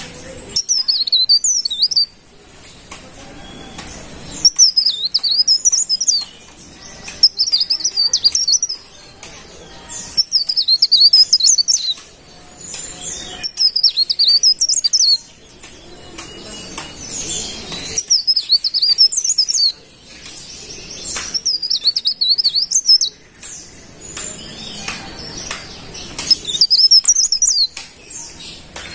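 Cikrak daun leaf warbler singing: short, high-pitched, rapid warbling phrases repeated every two to three seconds, with brief pauses between them.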